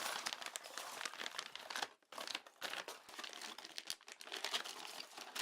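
Packaging crinkling and rustling as it is handled and dug through, with a brief pause about two seconds in.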